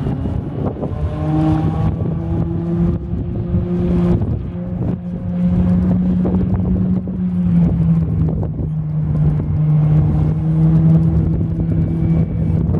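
The 4.3-litre V6 of a Four Winns 180 Horizon runs at planing speed. Its engine note comes in about a second in and holds steady as the boat passes, over low wind rumble on the microphone.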